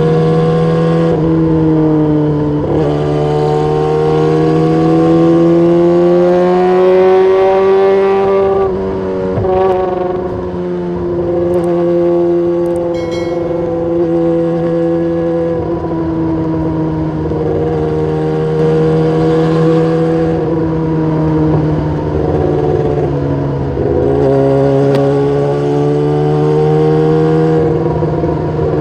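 Motorcycle engine running through its exhaust, the revs rising slowly and falling back a couple of times.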